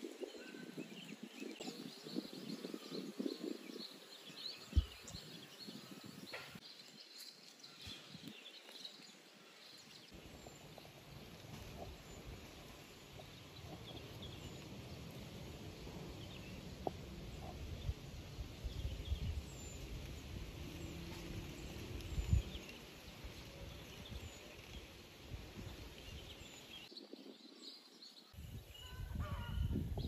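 Munias giving many short, high chirps while feeding in rice, over a low rumbling background noise that gets heavier about ten seconds in.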